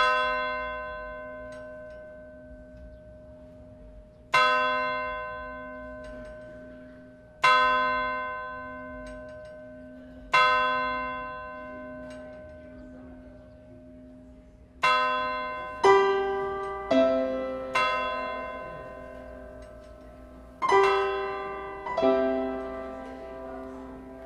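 Digital piano opening a prelude: single ringing chords about every three seconds, each left to die away over a soft pulsing low note, then quicker notes from about fifteen seconds in.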